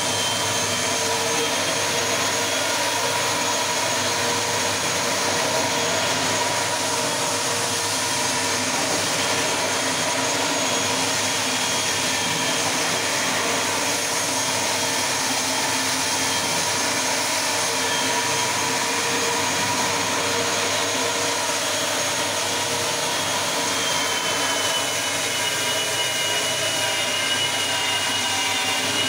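Electric marble floor grinding and polishing machine running steadily on a stone floor, a constant machine noise with a steady whine of several held tones.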